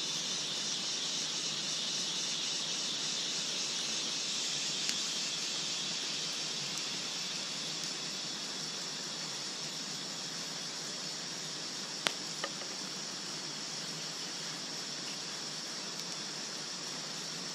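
Steady high insect buzzing over the hiss and crackle of a wood campfire, with two sharp cracks close together about two-thirds of the way through.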